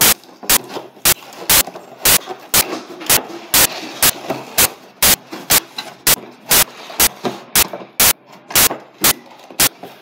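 Loud, sharp clicks repeating evenly about twice a second, with a faint hiss between them.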